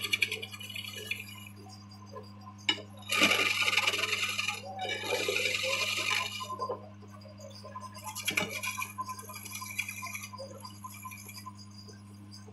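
A woodworking machine's electric motor hums steadily while a tool cuts and scrapes the wood in bursts: two loud spells of cutting noise, each about a second and a half long, start about three seconds in, with sharp clicks just before them and again around eight seconds in.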